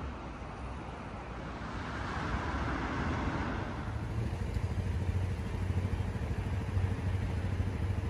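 Street traffic: a car drives past, its tyre and engine noise swelling about two to three seconds in. A low rumble follows and holds through the rest.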